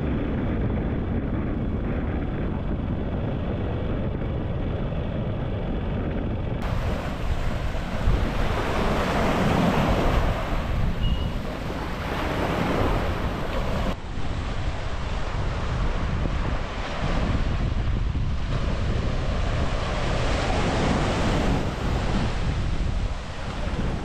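Sea surf breaking and washing on a beach, in repeated swells, with wind buffeting the microphone in a steady low rumble.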